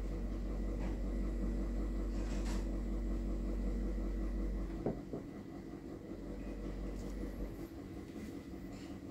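A steady mechanical hum, whose deepest part drops away about five seconds in, with a few faint scratches of a fineliner pen drawing on sketchbook paper.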